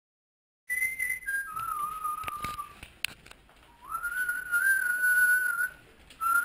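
After a moment of silence, a person whistles a slow tune, holding single notes that step down and then rise again, with a pause in the middle and a few light clicks.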